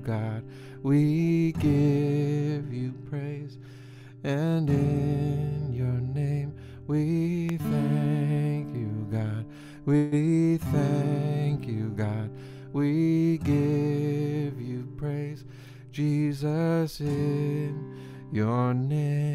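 Acoustic guitar strummed in a slow rhythm, accompanying a man singing a worship song.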